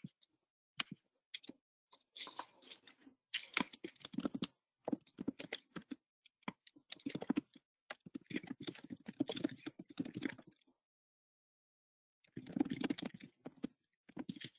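Typing on a computer keyboard: bursts of rapid keystroke clicks, stopping for about a second and a half near the end before one more short burst.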